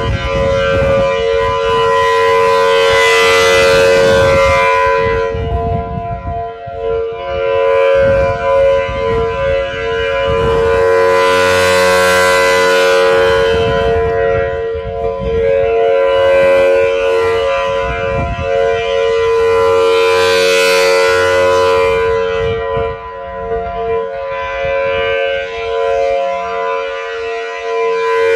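Federal Signal Thunderbolt outdoor warning siren sounding a steady tone at full pitch for a test. It swells and fades about every eight seconds as the rotating head sweeps past.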